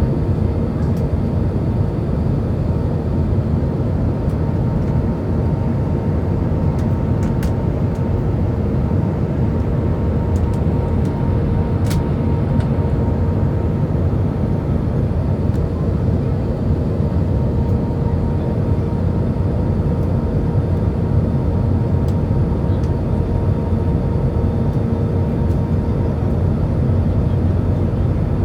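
Steady cabin noise inside an Airbus A320 with IAE V2527E-A5 engines, in flight on approach: a constant low rush of engines and airflow with a steady hum running through it. A few faint clicks sound briefly in the middle.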